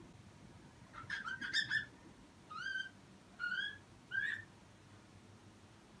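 Cockatiel calling: a quick run of chirps about a second in, then three short rising whistled calls.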